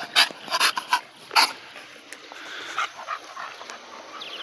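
American Bully dogs close by: four short, sharp dog sounds in the first second and a half, then a few fainter ones.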